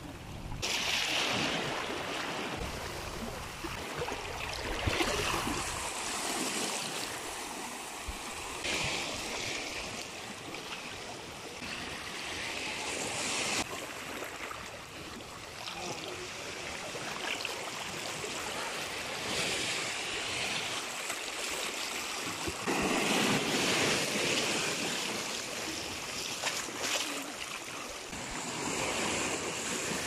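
Small ocean waves washing in among shoreline rocks, the surf swelling and easing every few seconds.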